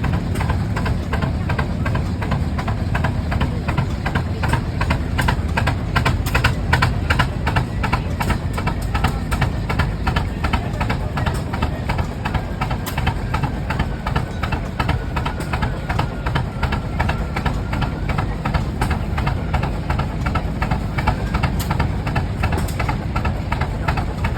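Rumely OilPull two-cylinder tractor engines running with a steady, rhythmic knocking beat while belted to a sawmill.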